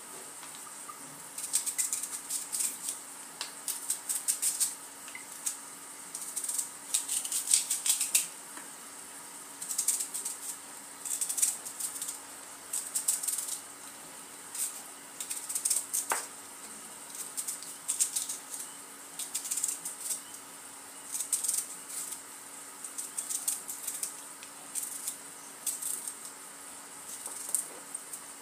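Kitchen knife slicing a red onion into thin rounds on a wooden cutting board: quick, crisp cuts with the blade tapping the board, in repeated bursts with short pauses between them.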